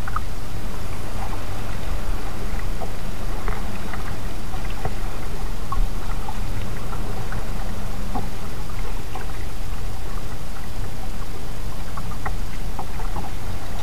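Kayak being paddled on calm water: small irregular splashes and drips from the paddle over a steady low rumble.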